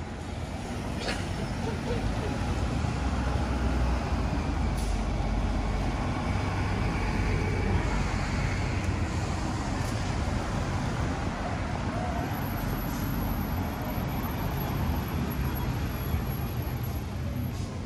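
Street traffic led by a heavy motor vehicle running close by: a deep engine rumble that swells about two seconds in and stays loud for much of the time.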